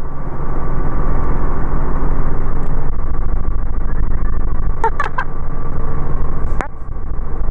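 Robinson R44 helicopter's engine and main rotor, heard from inside the cabin as a steady low drone that grows louder about half a second in as it lifts off. A few brief clicks come around five seconds in and again near the end.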